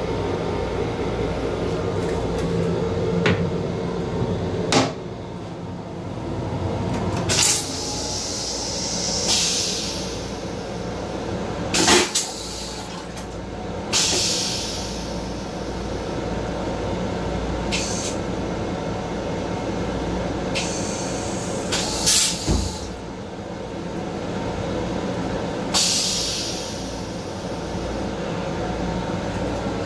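Steady low hum and rumble of a Metro-North M7 electric railcar, heard from its restroom, broken every few seconds by sharp knocks and rattles and by three short hisses that fade out over about a second.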